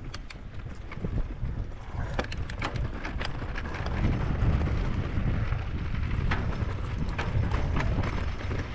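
Norco Sight VLT electric mountain bike descending a dirt trail: tyres rolling over rough ground with a steady rumble, and the chain and frame rattling and clicking over bumps. Wind rumbles on the microphone, growing louder about four seconds in as speed picks up.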